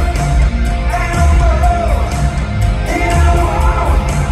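Hard-rock band playing live through an arena PA: a sung lead vocal over electric guitars, bass and a steady drum beat, recorded from the crowd.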